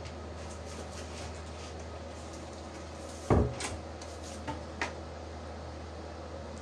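A single loud thump about three seconds in, then a few lighter knocks, as someone moves about right beside the phone; a steady low hum underneath.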